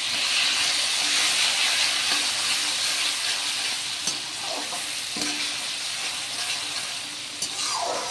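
Grated mango frying in hot oil with curry leaves and dried red chillies in a kadai: a steady sizzle that eases a little toward the end. A steel slotted spatula stirring the pan scrapes against it now and then.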